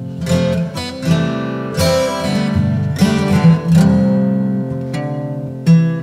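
Background music: an acoustic guitar piece, with chords and notes plucked and strummed at an uneven pace.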